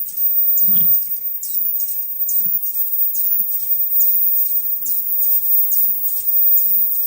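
High-speed 2D mask-making machine running through its production cycle: short high hisses repeat about twice a second over faint low knocks, with one stronger thump about a second in.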